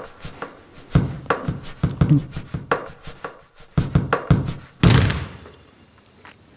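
Basketballs bouncing on a studio floor: a dozen or so irregular dull thuds with a short ring. They end about five seconds in with a louder, longer one.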